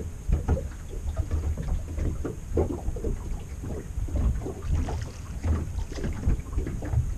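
Wind rumbling on the microphone and small waves slapping irregularly against the hull of a small boat lying still on open water.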